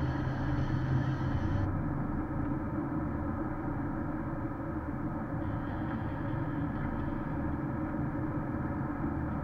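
Steady road and engine noise inside a Porsche Cayenne S driving on a snow-covered highway, picked up by a dashcam microphone; a low drone drops away about a second and a half in.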